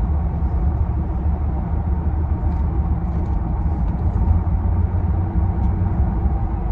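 Ford Ranger pickup heard from inside the cab while driving: a steady low rumble of engine and road noise. The engine pulls evenly after a misfire repair and tune-up, which the driver finds runs fine and feels a little more peppy.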